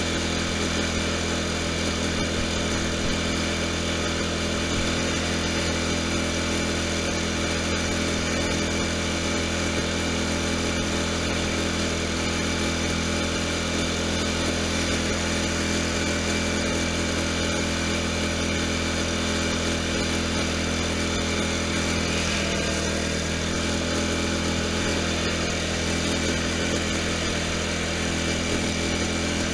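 Poulan Pro lawn tractor engine running steadily at travelling speed, a constant hum with no break.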